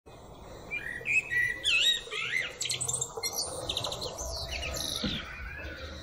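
Male common blackbird singing: mellow fluting phrases that slide up and down, breaking into a high, squeaky twitter midway, then another falling phrase.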